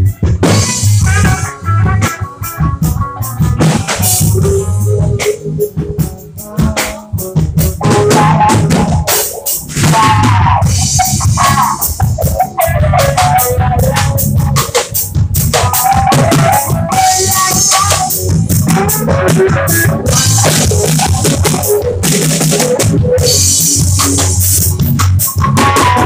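Band music led by a drum kit, with a melody line running above the drums.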